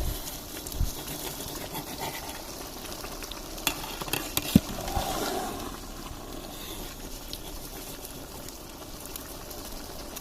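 A pot of vegetable pulao, rice in spiced water, bubbling and sizzling steadily as it cooks. There are a few sharp knocks about four seconds in.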